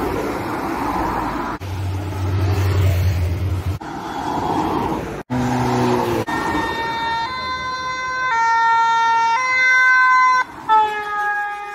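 Vehicles passing on a road, with a steady low tone for a couple of seconds. From about six seconds in, an emergency vehicle's two-tone siren sounds, stepping between two pitches about once a second.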